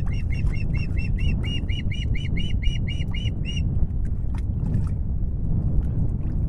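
Osprey giving a rapid series of short, repeated whistled chirps, about four a second, that stops about three and a half seconds in, over a steady low rumble of wind on the microphone.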